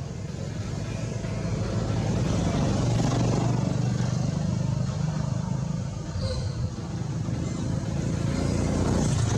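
Low rumble of a motor vehicle engine, growing louder over the first couple of seconds, easing off briefly just past the middle and rising again near the end.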